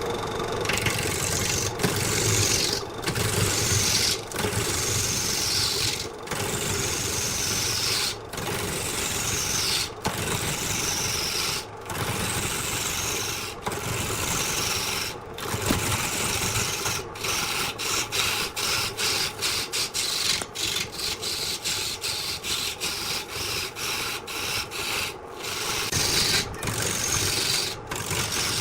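A tool rubbing and scraping against wood spinning on a wood lathe, in repeated passes. The passes come about every two seconds at first, then quicken to two or three a second past the middle.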